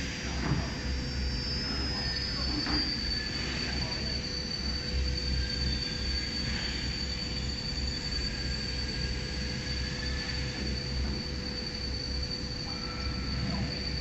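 Multi-spindle CNC wood router running, its spindle giving a steady high-pitched whine as the bit routes a pattern into a fibreboard panel, over a lower steady tone and a rumble from the machine.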